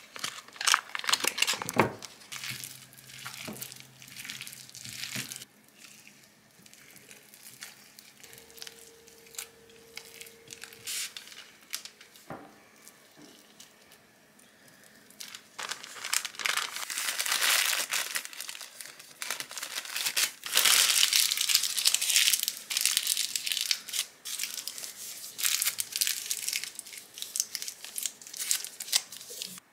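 Crinkling and rustling of handled material in irregular bursts, busiest near the start and again through the second half.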